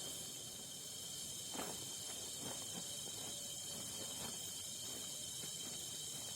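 Night insect chorus in tropical forest: a steady, high-pitched buzz of several insects holding fixed pitches. A few soft rustles or twig snaps come about a second and a half in and again later.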